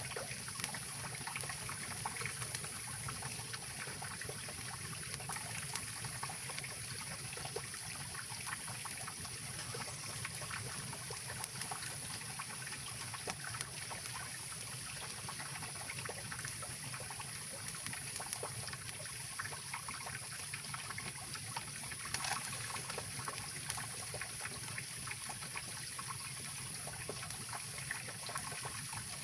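Mountain river water flowing and trickling steadily, with scattered small sharp crackles from a wood campfire.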